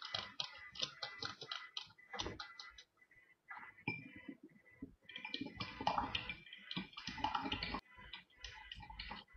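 Plastic spoon stirring liquid in a drinking glass, clicking against the glass in quick runs of ticks with a brief pause partway through.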